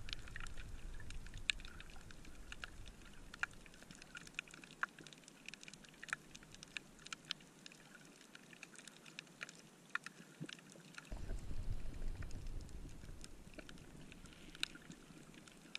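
Underwater reef ambience heard through the camera housing: a steady scatter of sharp clicks and crackles, typical of snapping shrimp, with a low rumble of water movement about eleven seconds in.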